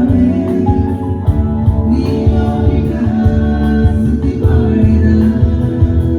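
Live band playing a Christian worship song: a male voice singing over keyboard and electric guitar with a steady beat.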